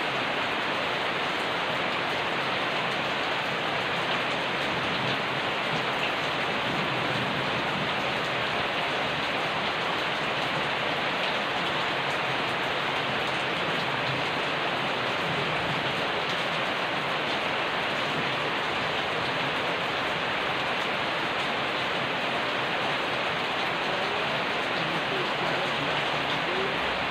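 Steady rain falling on a surface: a dense, even hiss of many drops that keeps the same level throughout.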